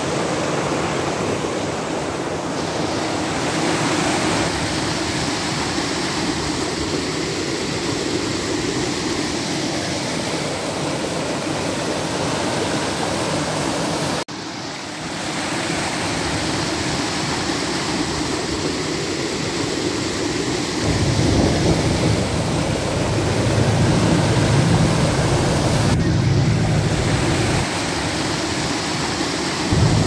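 Fast-flowing stream water rushing and churning in a steady, even rush. It cuts out briefly about halfway through, and a deeper rumble joins in during the last third.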